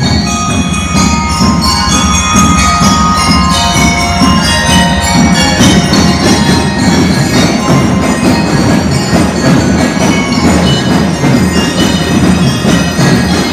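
Drum and lyre band playing: a ringing bell-lyre melody over drums.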